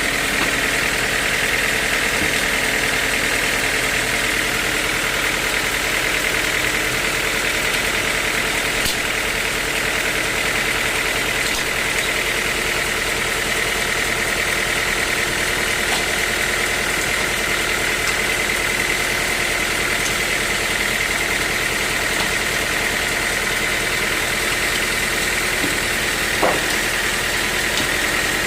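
Sawmill machinery running steadily: an engine hum under a steady high whine, with one sharp knock near the end.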